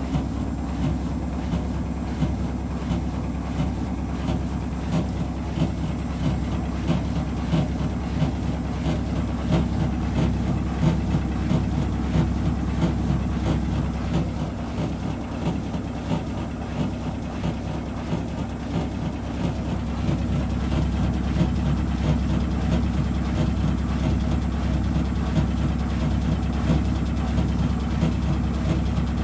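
Whirlpool 5 kg washing machine in its final spin: a steady motor and drum hum with fast, continuous rattling knocks, the sound of a badly unbalanced load.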